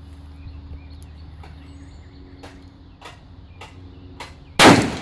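A single loud rifle shot about four and a half seconds in, its echo trailing off. Before it, a steady low hum and a few faint, sharp ticks.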